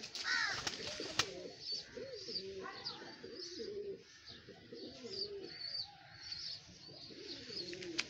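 Domestic pigeons cooing, low wavering coos going on throughout, with short high chirps of birds over them and one sharp click about a second in.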